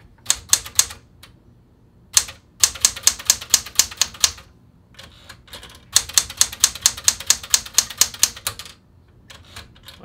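Smith Corona Galaxie 12 manual typewriter being typed on for a type test: fast runs of sharp keystroke clacks, several a second, in three bursts with short pauses between.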